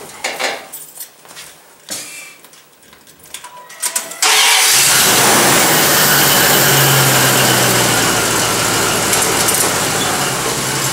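A Dodge Ram 1500 pickup's engine is started about four seconds in, after a few clicks and knocks from the cab, and then runs loudly and steadily. This is the test run after a rear differential pinion bearing repair, and no differential noise stands out, only the exhaust.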